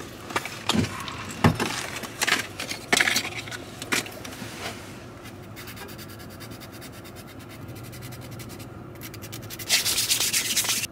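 Nail file rubbing back and forth across fingernails: scattered strokes at first, then a run of quick, even strokes, with the loudest filing near the end.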